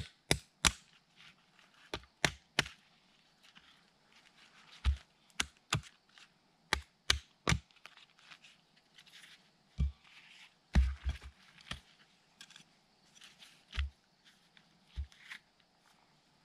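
Scattered sharp clicks and knocks of short log lengths being handled, picked up and stood upright on a pine-needle forest floor, with a few dull wooden thuds as a log is set down.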